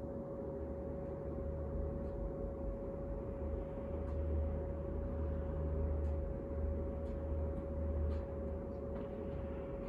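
Clothes dryer running, its exhaust blowing out through the outside wall vent: a steady hum over a low rumble that swells and fades.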